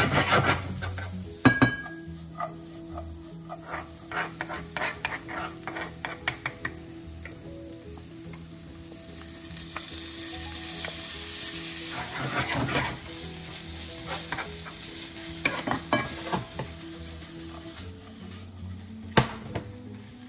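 Diced red onion sizzling in a frying pan while a wooden spatula scrapes and taps against the pan. About ten seconds in, gochujang-marinated ground beef goes into the hot pan and the sizzle grows louder, then the stirring resumes.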